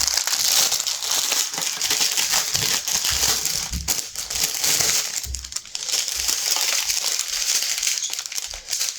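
Small plastic bags of diamond-painting drills crinkling and rustling as they are handled and sorted, a steady dense crackle with many small clicks.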